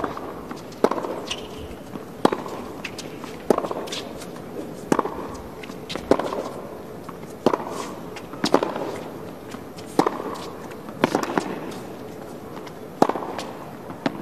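Tennis rally on a hard court: the ball is struck back and forth by the players' rackets, a sharp pop about every second and a half, about ten strikes in all.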